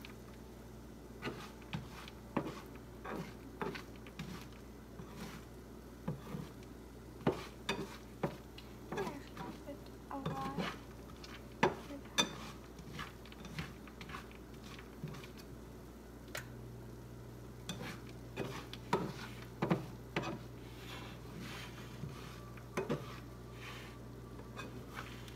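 Wooden spatula stirring and scraping Cheerios around a frying pan, with irregular light clicks and scrapes against the pan. A steady low hum runs underneath and grows louder about two-thirds of the way through.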